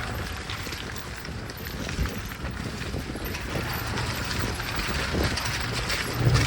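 Maruti Gypsy off-roading: its engine running steadily under load, with clatter and knocks from the body and suspension over rough ground and a sharper thump about two seconds in.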